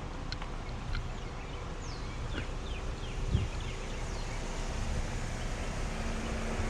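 A bird gives a quick run of short, falling chirps over a low outdoor rumble, with a single low thump midway.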